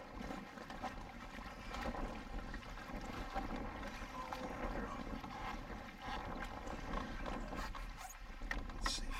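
Wind and choppy water around a canoe, an even rushing noise with a faint steady hum underneath and a few light knocks near the end.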